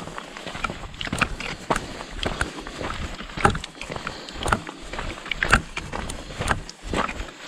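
Hiking boots crunching on a gravelly volcanic-rock trail at a steady walking pace, about two steps a second, mixed with the clicks of walking-stick tips on the stones.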